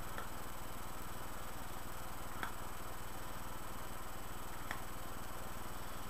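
Steady electrical hum and hiss with three faint, soft pops about two seconds apart, from lips puffing on a curved pipe's stem.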